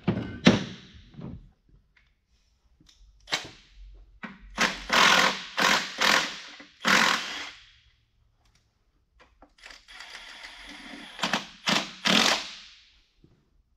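Air impact wrench running in several short bursts, with a quieter, steadier stretch near the end, running down the bolts that draw the auxiliary section of an Eaton RTLO16913A transmission onto the main case.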